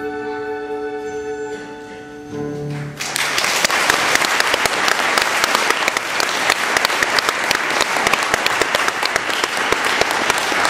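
A held musical chord ends a stage song, and about three seconds in an audience breaks into loud, steady applause.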